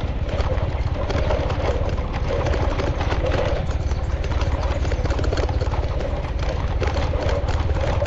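Vehicle engine running steadily with road rumble, heard from inside a moving car.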